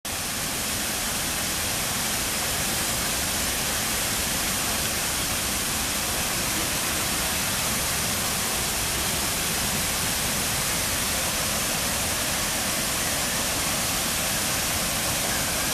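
Steady rush of white water pouring over Brooks Falls, a continuous even roar with no breaks.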